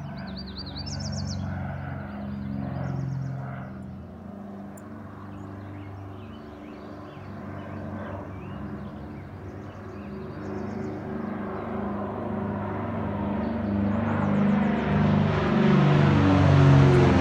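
Piper PA-23 Aztec twin piston engines and propellers droning steadily, growing louder over the last few seconds as the plane comes low overhead. Birds chirp now and then.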